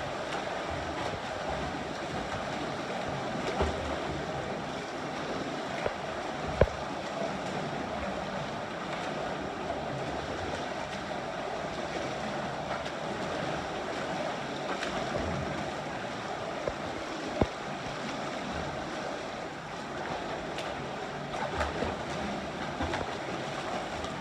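Steady splashing and churning of water from swimmers, with a couple of sharp knocks, one about a quarter of the way in and one about two-thirds through.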